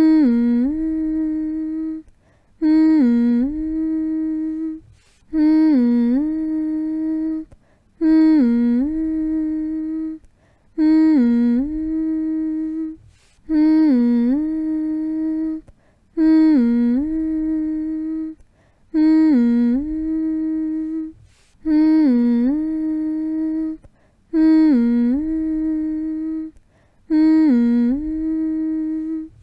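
A person humming the same short phrase over and over, about every two and a half seconds: the pitch dips and comes back up, then holds one steady note before a brief pause.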